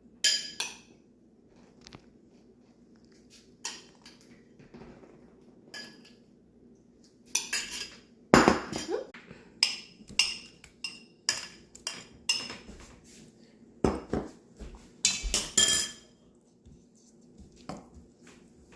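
Spoons and utensils clinking against a bowl and dishes in irregular taps, sparse at first and then in two busier flurries, about a third of the way in and again past the middle.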